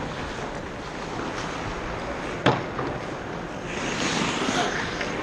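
Ice hockey rink sound: skate blades carving the ice as a steady wash, with one sharp puck impact about two and a half seconds in. Near the end comes a longer, brighter scraping hiss of skates digging into the ice.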